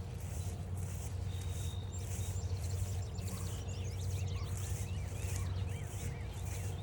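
Footsteps on a trail at about two steps a second, over a steady low rumble. A songbird sings a held whistle note, then a run of quick, curving chirps from about three seconds in.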